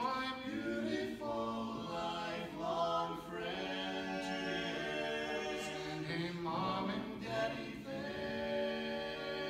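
Male barbershop quartet singing a cappella in close four-part harmony, moving from chord to chord, with a long chord held from about eight seconds in.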